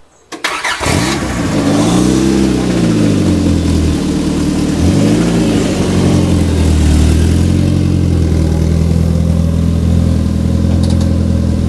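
Car engine running at close range, its pitch rising and falling twice in the first few seconds as the car moves off, then holding steady.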